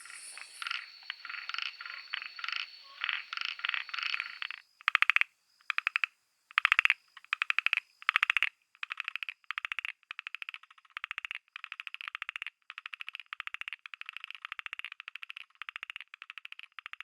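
Frogs of the Ryukyu Islands calling, several species in turn. First comes a quick run of pulsed calls over a thin steady high tone. Then come loud separate pulsed calls, and from about nine seconds in, short pulsed calls repeated evenly, a little under twice a second.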